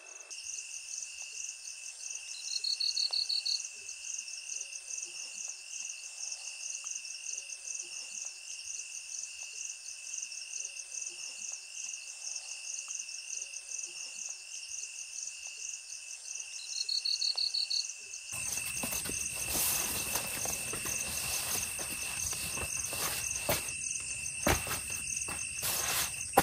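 Night insect chorus of crickets and other insects, trilling steadily at several high pitches at once. A louder pulsing trill comes in twice, about 3 s and 17 s in. About 18 s in, a fuller hiss with scattered clicks and knocks joins the chorus.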